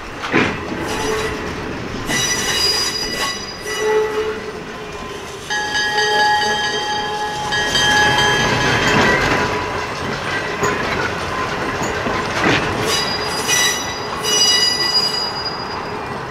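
Yakima Valley Transportation steeple-cab electric locomotive No. 298 rolling past on its track, its steel wheels squealing against the rails in spells of high, steady, ringing tones. There are two sharp clicks, one just after the start and one about twelve seconds in.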